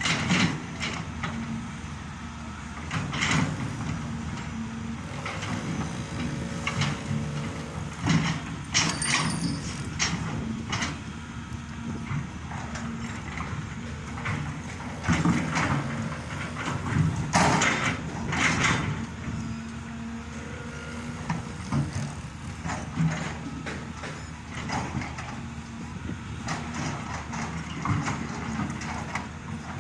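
Caterpillar hydraulic excavators at work: a steady diesel engine drone, with repeated sharp metal clanks and knocks from the digging.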